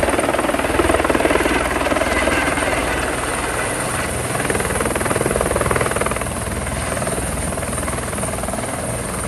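Helicopter running close by, its rotor blades chopping fast over a steady high whine. The sound eases a little about six seconds in.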